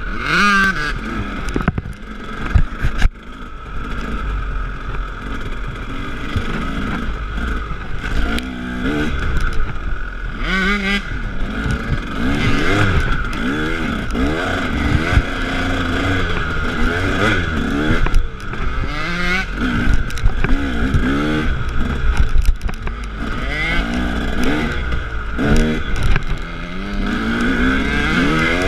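KTM 300 two-stroke dirt bike engine, heard from its own handlebars, revving up and falling back over and over as it rides a rough trail, with scattered knocks and clatter from the bike over the bumps.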